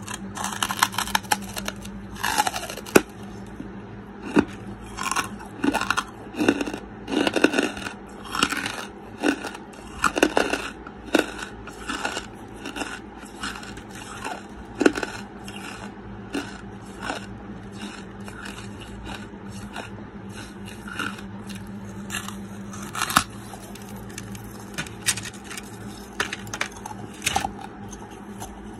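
Close-miked biting and chewing of lump charcoal chunks: a run of crisp crunches and crackles, coming fast in the first half and more sparsely later, over a steady low hum.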